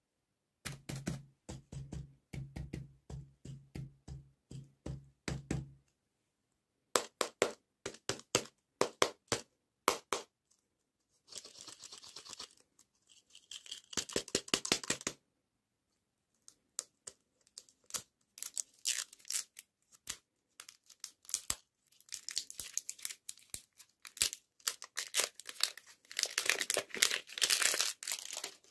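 Candy packaging being handled by hand: plastic wrappers crinkled and torn open, with clusters of sharp plastic clicks and taps. It begins with a steady run of taps, about two a second, and the crinkling is thickest near the end.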